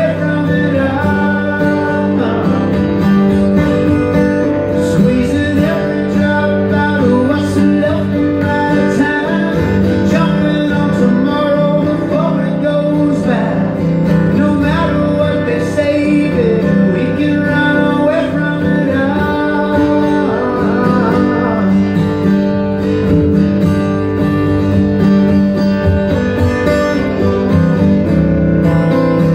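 Two acoustic guitars played together live, strummed and picked in a country-flavoured song.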